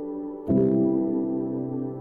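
Slow, soft ambient keyboard music: a chord struck about half a second in and left to ring.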